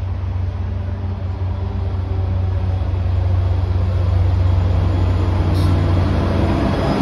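MBTA F40PH-3C diesel locomotive's engine running with a deep, steady rumble that grows louder as the train approaches, with no bell ringing.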